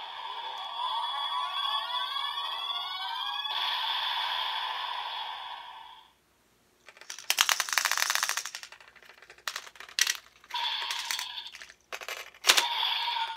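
DX Evol-Driver toy transformation belt playing a looping electronic sound effect with sweeping chirps, which cuts off about six seconds in. Plastic rattling and a few sharp clicks follow as the bottles are handled and one is snapped into the belt's slot near the end.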